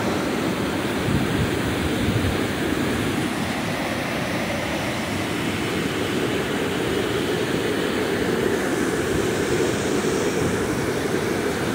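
River water pouring over a low dam into churning white-water rapids: a steady, deep rush.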